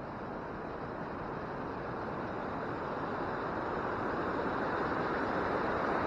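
Waterfall rushing: a steady wash of falling and churning creek water, growing gradually louder.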